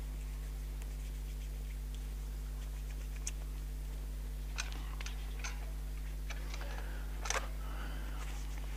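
Quiet church room tone: a steady low electrical hum, with a few faint clicks and small knocks. The loudest is a quick pair about seven seconds in, followed by some soft rustling near the end.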